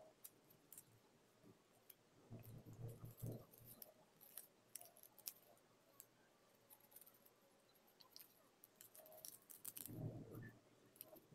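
Faint crinkling and rustling of origami paper being folded and creased by hand, with scattered small crisp clicks. There are soft, muffled handling bumps at about two to three seconds in and again near the end.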